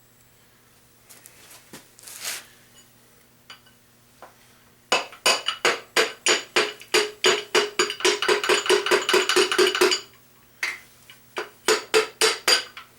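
Fast, even run of sharp metallic taps, about five a second, each with a short ring, then a shorter run near the end: tapping the number 2 piston and connecting rod out through the cylinder bore of the engine block.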